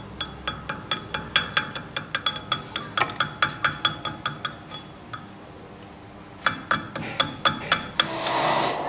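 Chipping hammer striking slag off a fresh weld bead on a steel gear shaft: quick ringing metal clinks, about three or four a second, with a pause a little past halfway. Near the end a small power tool starts up with a high whine.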